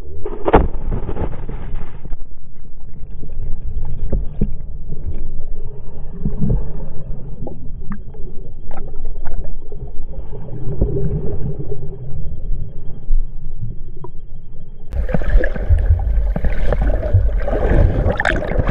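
Action camera plunging into a river pool about half a second in, then muffled underwater rumbling and gurgling as the wearer swims along the bottom. A few seconds before the end the camera comes up to the surface, and the splashing of swimming strokes is heard clearly.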